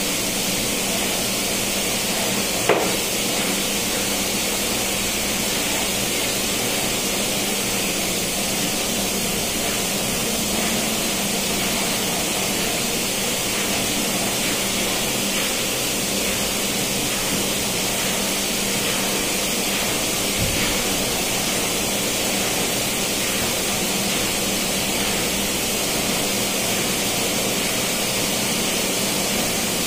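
Steady, loud machinery noise of a ship's engine room, with a single sharp hammer blow on metal that rings briefly about three seconds in.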